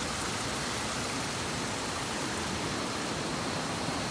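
Small waterfall trickling down a bank and spilling in a shallow sheet of water across a road: a steady, even rush of running water.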